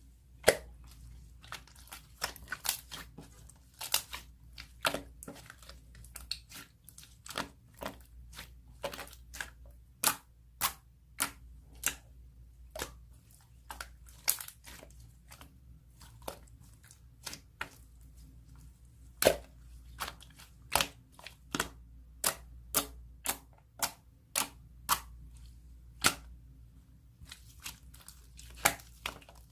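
Soft milky slime being squeezed and pressed by hand, giving irregular sharp clicks and pops, about one or two a second.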